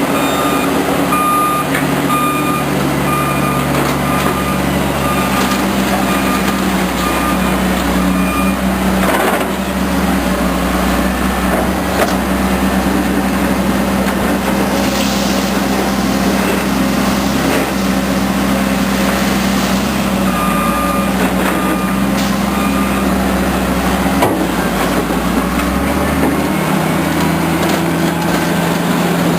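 Diesel engines of heavy construction equipment running steadily. A reversing alarm beeps about once a second for the first eight seconds or so, then again briefly about two-thirds of the way through.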